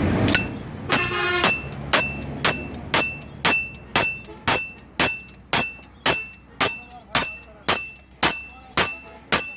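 Blacksmith's hammer striking steel on an anvil in a steady rhythm, about two blows a second, each with a bright metallic ring, while forging a kachi sickle blade. One blow about a second in rings on longer than the rest.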